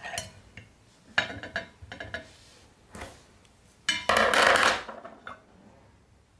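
Chopsticks clicking and tapping against a small ceramic dish as food is moved into it. About four seconds in comes a loud rustling scrape lasting about a second.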